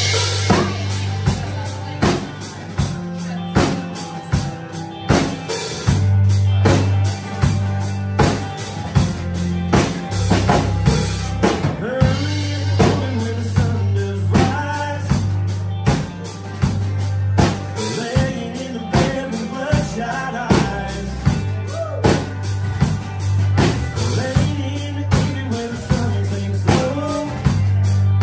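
Live band playing amplified: a steady drum-kit beat, electric bass, electric and acoustic guitars, with a man singing lead.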